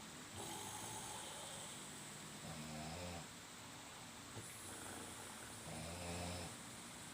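Snoring: two long, low, rattling snores about three seconds apart, with softer breaths between.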